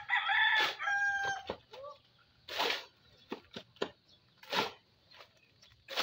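A rooster crows once at the start, for about a second and a half. Around it, a hoe scrapes through wet concrete mix on the ground in short strokes about every two seconds, with a few lighter knocks between them.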